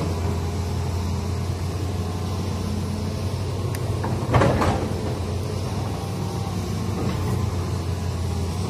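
Hitachi hydraulic excavator's diesel engine running steadily under load as the machine works, with a brief knock about halfway through.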